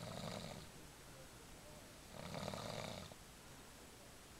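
Snoring: two snores about two seconds apart, one near the start and one about two seconds in.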